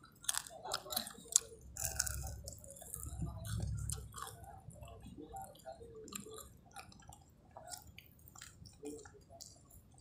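Close-miked chewing of a mouthful of nasi Padang, with many short mouth clicks and smacks throughout and a low rumble for about two seconds in the middle.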